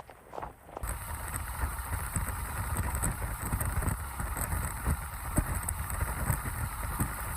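Hurricane wind buffeting the microphone with a constant rush of wind and rain, in irregular low gusts. It starts suddenly about a second in.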